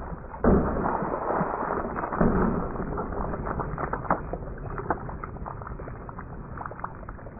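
Slowed-down sound of plastic water jugs being hit by a 9mm +P bullet: a sudden deep, dull thud about half a second in, then water splashing and spattering, with many scattered drips and patters that slowly die away.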